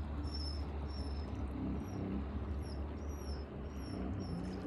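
Wind buffeting the microphone as a steady low rumble, with a small bird repeating short, high, falling chirps about twice a second.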